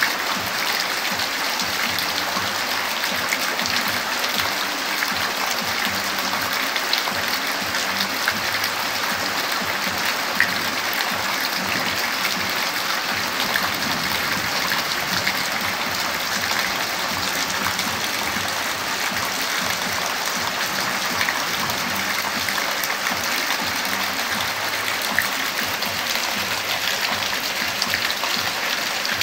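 Steady heavy rain, an even hiss with a dense patter of fine drop ticks.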